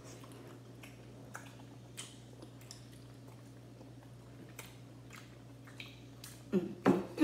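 Faint chewing and mouth clicks of people eating roasted chicken drumsticks, scattered short ticks over a steady low hum.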